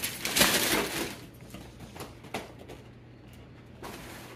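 Paper and cardboard rustling as a gift box is handled and opened, loudest in the first second, with a single click about halfway.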